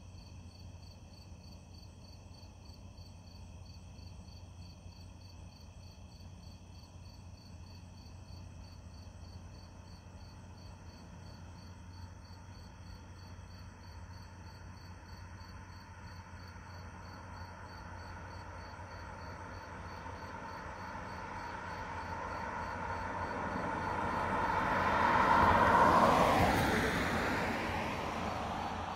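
A steady chorus of crickets or other night insects, pulsing in several high tones. A car approaches along the street and passes by near the end, its tyre and engine noise swelling to a peak and then fading.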